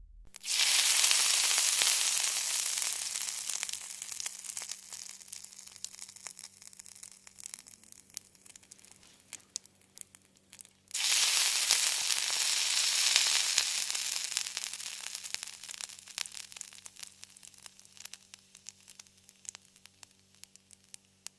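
Food frying in hot oil in a pan: a loud, dense sizzle full of crackles that starts suddenly and slowly dies down. About halfway through it cuts off and starts loud again, then fades once more.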